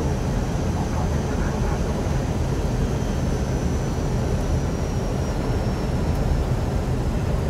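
Steady cockpit noise of an Airbus A319 on approach: an even rush of airflow with a low rumble, and a faint thin high tone that dips slightly about five seconds in.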